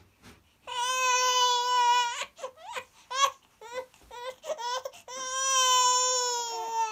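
Baby crying: a long wail about a second in, then a run of short, choppy sobbing cries, then another long wail from about five seconds in.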